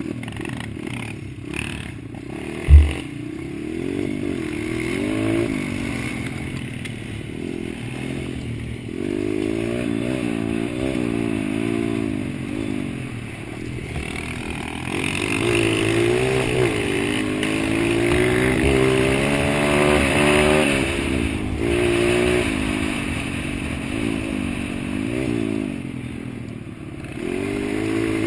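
Dirt bike engine running close up under way, revving up and falling back again and again as the throttle opens and closes. A single sharp thump about three seconds in is the loudest moment.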